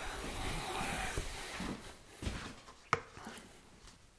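A few soft footsteps on a wooden floor, with one sharp click about three seconds in.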